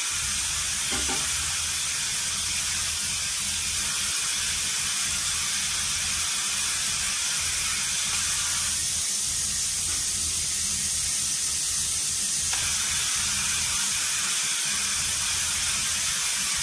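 Frame-straightening machine's pump running under load as it pulls on the van's unibody, a steady hiss with a low hum underneath.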